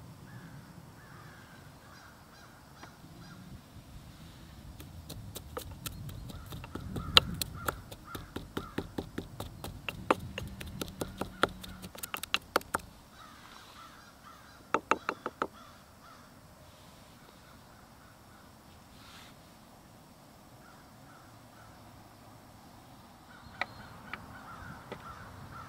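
Wooden pestle pounding garlic, herbs, chili and coconut oil in a wooden mortar: a fast run of knocks, about four a second for some eight seconds, then a short burst of a few more and a couple of single taps near the end. Faint bird calls in the background.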